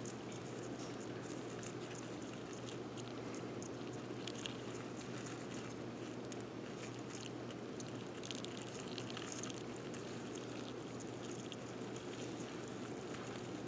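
Faint, irregular small clicks and scratches as a baby blue-tongued skink hunts and eats dubia cockroaches in a bucket, over a steady low hum.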